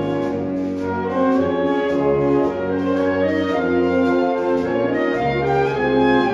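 A high school concert band of brass and woodwinds playing, holding full chords over a low bass line, the notes changing every second or so.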